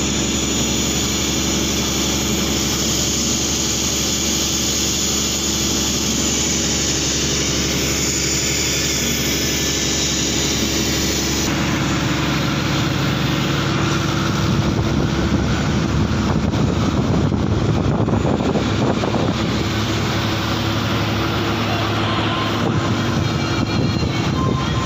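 Fishing boat's engine running steadily under way, with water rushing and splashing along the wooden hull.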